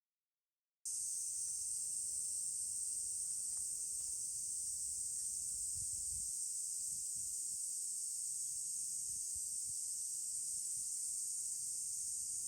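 A steady high-pitched hiss that starts abruptly about a second in, with faint soft low rumbles beneath it near the middle.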